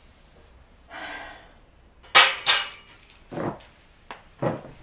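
A breathy exhale, then a few short, sharp scrapes and knocks, two close together and then two more about a second apart.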